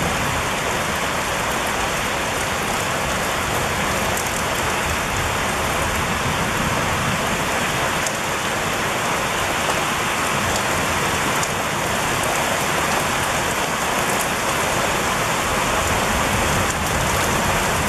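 Heavy rain pouring down steadily, a dense, even hiss of water with a few single drops ticking close by.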